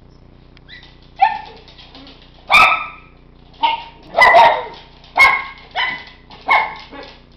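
Miniature schnauzers barking: about eight sharp, high-pitched barks at uneven intervals. This is excited demand barking, the dogs asking to be taken along for a car ride.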